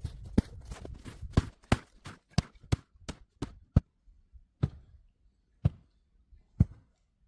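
A series of sharp knocks or taps, about three a second at first, then slowing and spreading out to about one a second. A low rumble runs under the first second.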